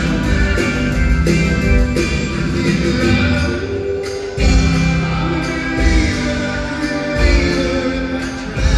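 Upbeat jive music with singing over a band and a steady, driving beat.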